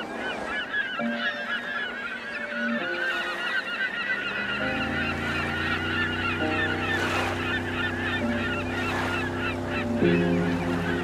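A dense flock of birds calling, many short calls overlapping, laid over sustained music chords that change every second or two; a deeper bass note joins about four and a half seconds in.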